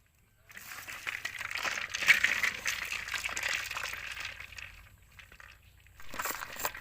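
Ice and salt crunching and clinking as the milk container is churned in it, a dense crackly rattle. It starts about half a second in, dies down near the end, then picks up again.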